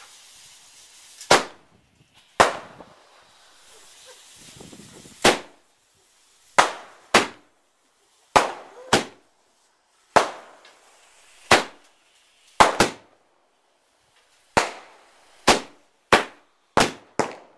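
White spider fireworks, tied together with a fuse, going off one after another: about sixteen sharp bangs at uneven gaps, coming faster near the end. A faint hiss of burning runs between the first few bangs.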